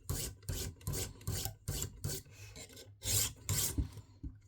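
Guided-system sharpening stone rasping along the steel edge of a flexible fillet knife in quick back-and-forth strokes, about two or three a second, on the coarse 140-grit stone; the strokes stop shortly before the end.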